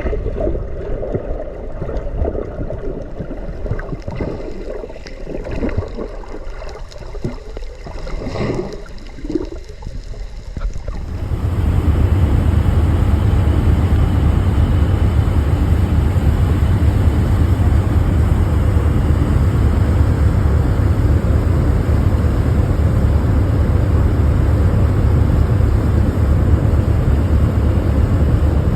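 Tour motorboat on the open sea with water and wind noise. About eleven seconds in it turns much louder and steadier, a low rumble with a rushing haze, as the boat gets under way at speed.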